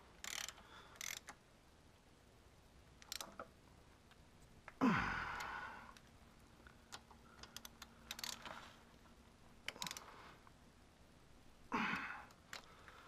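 Socket ratchet clicking in short, scattered runs as the bolts of a motorcycle forward-control mount are tightened, with a louder rushing noise about five seconds in.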